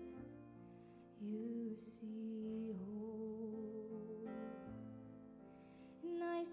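Orchestra playing a slow, quiet instrumental introduction: sustained chords that change slowly, with a slight vibrato on the held notes.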